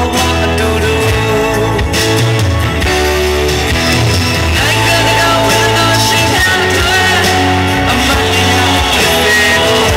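A man singing into a handheld microphone over loud amplified band music with a heavy bass line.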